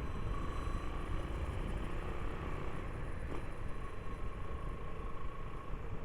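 Motorcycle running steadily at low speed in city traffic: an even engine rumble with road noise, and a faint steady whine over it.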